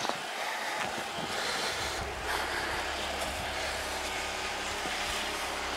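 Storm wind blowing outdoors and across the camera microphone: a steady hiss, with a low rumble of wind on the mic that comes in about a second and a half in and holds.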